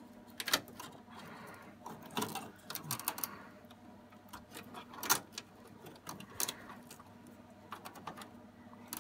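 Irregular clicks, taps and light rattles of a braided SAS cable being handled and pressed into place against the metal chassis and plastic cable clips inside a Dell PowerEdge T610 server.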